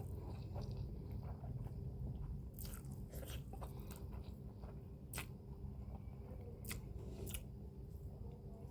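A person chewing a mouthful of spicy instant noodles close to the microphone: soft wet mouth sounds with scattered sharp smacks and clicks.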